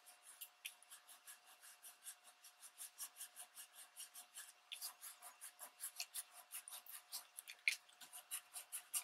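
Soft cloth rubbing briskly back and forth over embossed magazine paper dampened with a water and rubbing-alcohol mix, a faint, even scrubbing of about four to five strokes a second. The rubbing is lifting the ink off the raised areas of the paper.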